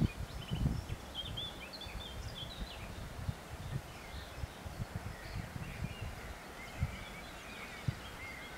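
Songbirds chirping and trilling in the trees, with irregular low rumbles of wind buffeting the microphone.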